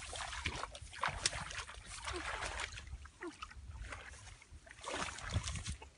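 Shallow muddy paddy water splashing and sloshing irregularly as bare feet wade through it and hands grope in it.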